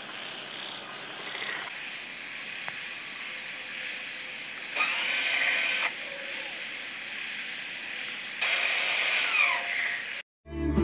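Outdoor night ambience: a steady high chorus of insects and frogs, with two louder stretches of calls about five and eight and a half seconds in. It cuts out just before the end.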